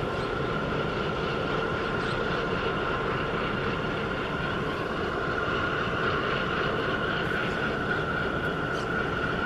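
Large container ship passing close by: a steady machinery drone with a rumbling hiss and a steady high whine, unchanging throughout.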